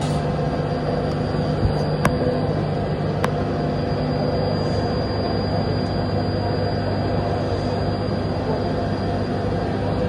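Takamaz XT-8MY CNC lathe running through a machining cycle: a steady mechanical hum with a high whine, whose low tone drops in pitch about three seconds in. A few sharp clicks come in the first few seconds.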